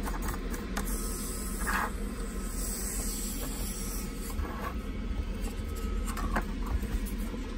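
Faint scraping and clicking of a Jetboil stove burner being twisted onto its gas canister and handled, with one short scrape about two seconds in, over a steady low background hum.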